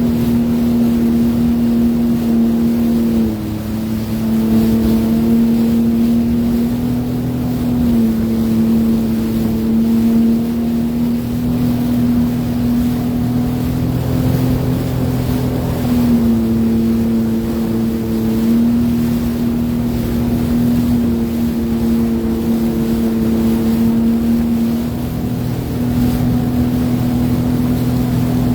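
Sea-Doo Fish Pro personal watercraft's engine running at a steady cruising speed over the water. Its pitch shifts slightly now and then as the throttle eases and picks up again.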